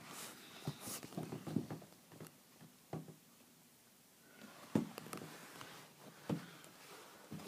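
Faint, scattered knocks and rustles of a handheld phone camera being moved about, with a near-quiet stretch in the middle.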